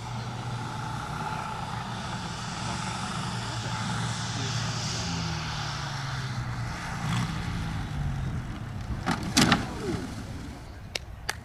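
Moki radial engine of a giant-scale RC F4U Corsair running steadily at low throttle on approach, its note shifting and fading about eight seconds in. A burst of loud knocks about nine seconds in as the plane touches down on failed landing gear and crashes, followed by a couple of sharp clicks near the end.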